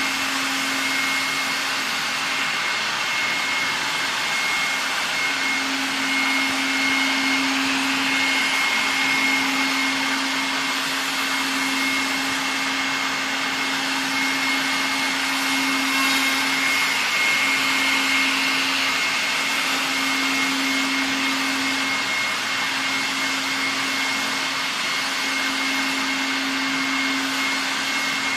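Electric spindle of a robot-arm CNC router spinning at high speed as its cutter mills a block of EPS foam: a steady whine over a continuous rushing hiss.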